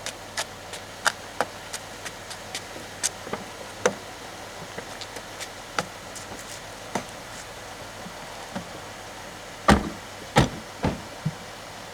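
Scattered light clicks and taps, then a few heavier thumps about ten seconds in.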